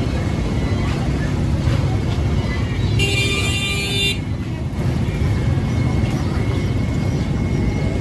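Busy street ambience: a steady low traffic rumble with faint voices, and a vehicle horn honking once for about a second, roughly three seconds in.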